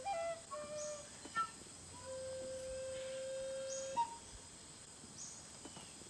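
Soft flute melody as background music, slow held notes ending on a long note that stops about four seconds in. A steady high-pitched insect drone runs underneath.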